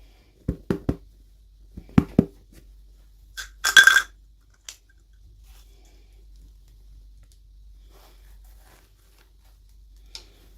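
Toy packaging handled during an unboxing: a few sharp taps of small hard pieces in two quick groups, then a brief crinkling tear of packaging about three and a half seconds in, the loudest sound.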